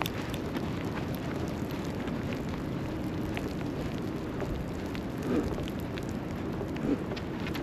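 Steady outdoor city street ambience: a constant rushing noise with scattered faint clicks and two brief low bumps about five and seven seconds in.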